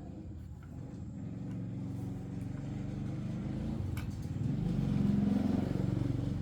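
A motor vehicle's engine passing by, growing louder to a peak about five seconds in, then fading.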